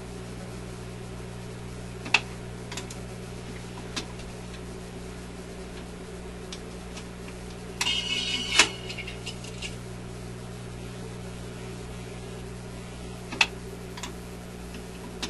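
Electrohome 652 record player running through its change cycle: a steady motor hum with a few sharp mechanical clicks, and a short clattering burst about eight seconds in as the tone arm is lifted and set back down on the record.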